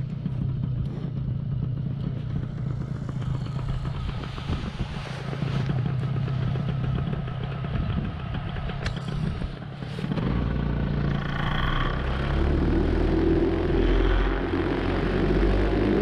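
Paramotor engine running steadily, with music fading in over it in the last few seconds.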